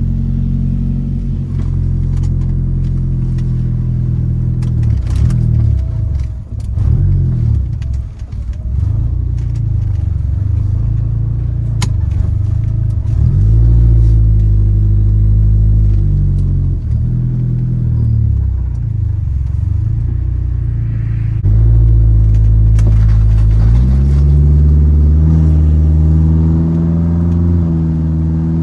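1997 Mitsubishi Eclipse GSX's turbocharged 2.0-litre four-cylinder running, its engine note falling and rising several times in the first ten seconds, then stepping up to a steadier, higher note about 22 seconds in.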